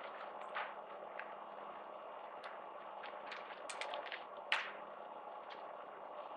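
Steady hall room noise with scattered small clicks and knocks, several close together about four seconds in.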